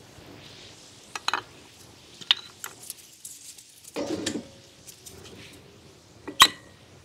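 Metal brake parts being handled: a few sharp clinks, a duller knock about four seconds in, and a loud sharp clink near the end.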